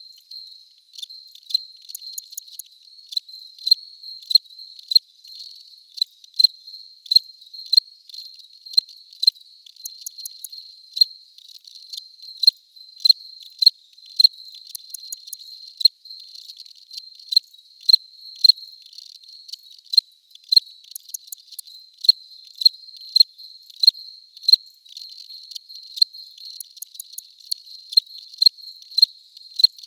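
Cricket chirping: a steady high trill with short chirps repeating about two to three times a second.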